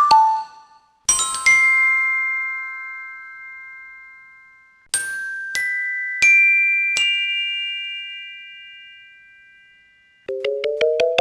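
Glockenspiel-like chime sound effects: a bright chord struck and left to ring and fade, then notes added one by one into a second ringing chord, then a fast run of repeated notes climbing steadily in pitch near the end.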